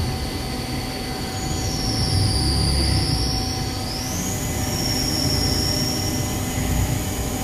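The spindle of a Southwestern Industries vertical machining center is running its automatic warm-up cycle: a steady high whine over a low machine hum. About four seconds in, the whine glides up in pitch as the spindle speed is raised.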